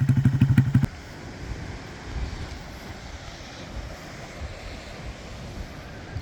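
A loud engine running with a fast, even pulse cuts off abruptly about a second in, leaving steady outdoor background noise.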